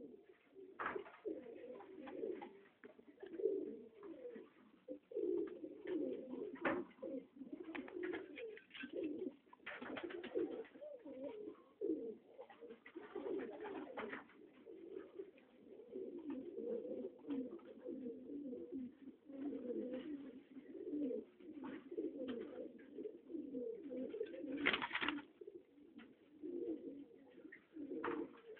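A pair of white Kalduma high flyer pigeons cooing almost without pause, a low warbling coo repeated over and over. A few short sharp knocks break in, the loudest near the end.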